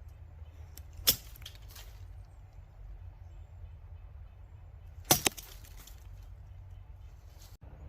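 Two sharp machete chops about four seconds apart, each a short loud strike with a brief follow-on, over a steady low rumble.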